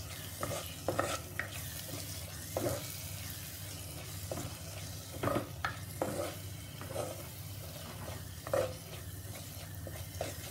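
A spatula stirring and scraping thick spice masala in a handi pot, with irregular scrapes and knocks against the pot about a second apart. The masala sizzles in the oil as it roasts.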